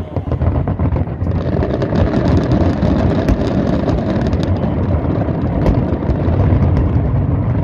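Dense fireworks barrage: a continuous low rumble of bursts with many sharp crackles and pops over it.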